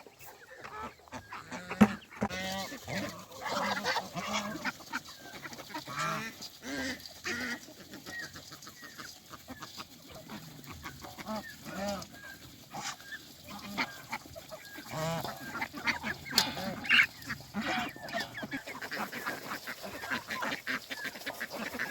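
A flock of geese honking at feeding time, with other poultry calling among them, many short calls overlapping. Scattered short clicks run through it, and one sharp knock about two seconds in is the loudest sound.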